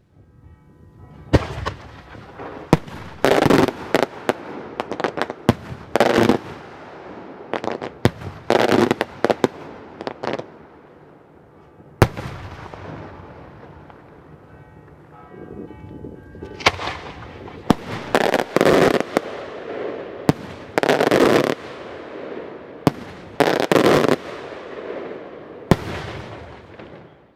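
Maltese cylindrical fireworks shells (beraq) bursting overhead with thunder reports. There are two volleys of rapid sharp bangs, the first starting about a second in and the second about 16 s in, each trailing off in a rumbling echo, with a single sharp crack in between.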